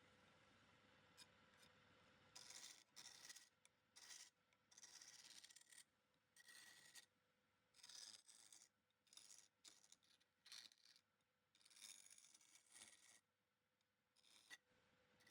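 Faint rubbing or scraping strokes that come in short, irregular spurts, starting about two seconds in.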